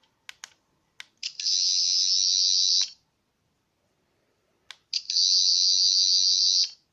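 Toy 13th Doctor sonic screwdriver's electronic sound effect from its small speaker: two high, fast-warbling buzzing whirs of about one and a half to two seconds each, the first about a second in and the second near the end, each just after a sharp click. A few more clicks come at the start.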